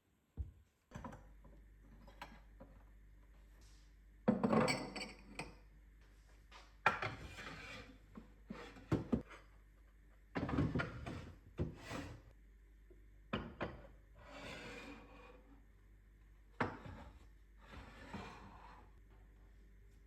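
Kitchenware and containers being handled and set into wooden cabinets: irregular knocks, clinks and rubbing scrapes, about a dozen short bouts with pauses between.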